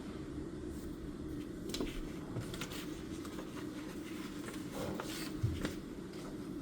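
Desk study sounds: scattered pen-on-paper scratches, page rustles and small taps, with a soft thump against the desk about five and a half seconds in, over a steady low room hum.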